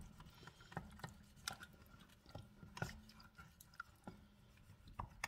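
Wooden spatula scraping and stirring across the bottom of an enameled cast-iron Dutch oven through a thin liquid, with faint, irregular scrapes and squishy liquid sounds: the browned fond being loosened off the bottom of the pot.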